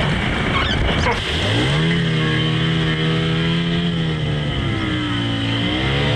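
Boat outboard motor revving up about a second in, then running at a steady pitch that sags slightly and picks up again near the end, over wind and surf.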